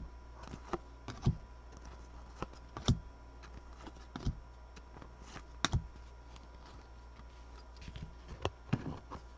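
Football trading cards being handled and set down on a tabletop: scattered light taps and clicks a second or two apart, a few in quick succession near the end, over a low steady hum.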